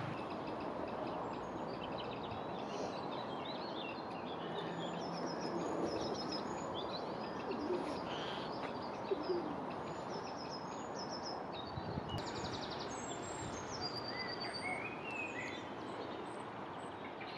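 Songbirds singing and calling, several voices overlapping in short high chirps and trills, over a steady outdoor background rush.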